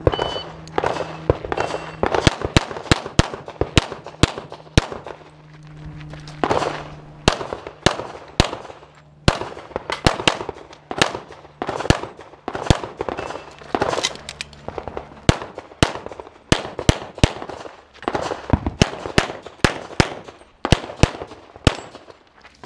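Pistol fired in rapid strings of shots at close range, with brief pauses between the strings as the shooter moves through the stage.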